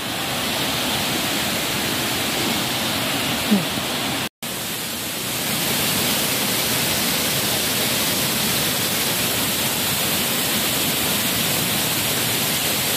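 Waterfall rushing: a steady, even roar of falling water, cut by a brief gap about four seconds in and a little louder after it.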